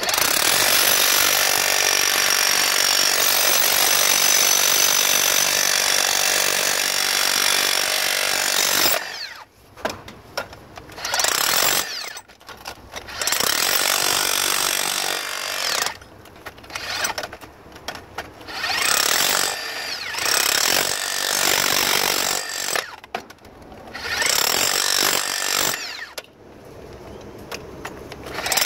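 Makita DHR400 36-volt cordless SDS-Max hammer breaking into the ground. It hammers without a break for about nine seconds, then in a series of short bursts of one to three seconds with brief stops between them.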